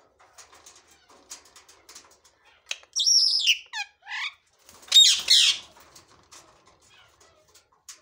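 Caged green parrots squawking: a run of shrill calls with quick falling pitch strokes about three seconds in, then a louder harsh screech about five seconds in. Faint clicks and scratches come between the calls.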